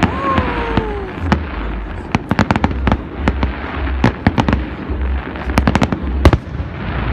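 Fireworks display: a dense run of sharp cracks and bangs from bursting shells, with the loudest bang about six seconds in.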